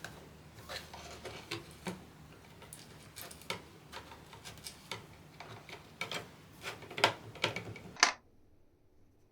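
Irregular clicks and taps of small hard parts being handled and set down during keyboard assembly, with the loudest knocks near the end before the sound cuts off suddenly.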